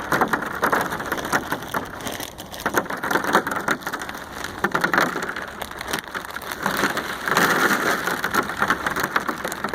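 A cow crunching and chewing kettle corn: a dense, continuous run of crackling crunches.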